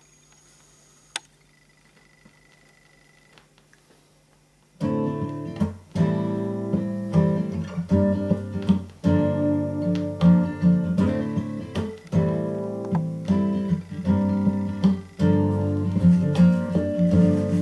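A 7-inch vinyl single playing on a turntable: a few seconds of quiet lead-in groove with a low steady hum and a single click about a second in, then guitar strumming in a steady rhythm starts the song about five seconds in.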